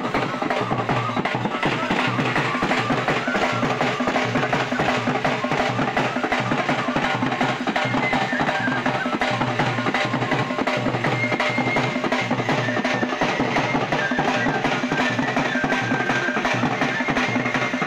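Several dhols played together in a steady, driving Bhaderwahi folk dance rhythm.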